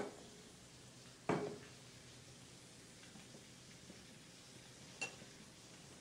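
Quiet kitchen room tone as hands roll a yuca-and-potato dough on a floured cutting board, with one soft thump about a second in and a short click near the end.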